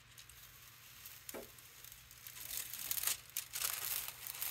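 Sheet of thin white tissue paper being peeled off a tacky, acrylic-inked gel printing plate, with a faint crinkling rustle that grows louder from about halfway in.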